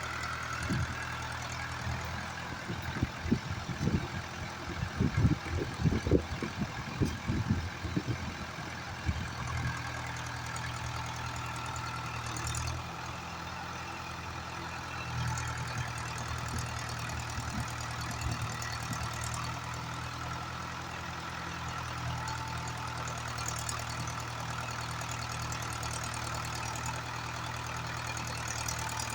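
Mahindra 575 DI XP Plus tractor's diesel engine running steadily at a low, even pace. For several seconds near the start, irregular low thumps sound over it.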